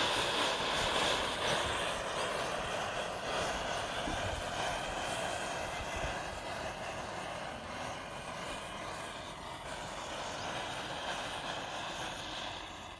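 Rows of upright matchsticks catching one after another, the match heads flaring in a continuous fizzing hiss that slowly fades.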